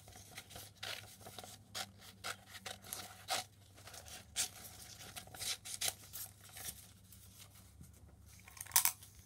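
Scissors snipping through a sheet of paper in short, irregular cuts, with the paper rustling as it is turned, a little louder near the end.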